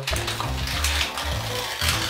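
Baking paper being slowly torn off a roll, a continuous crinkly rustle and crackle, with background music underneath.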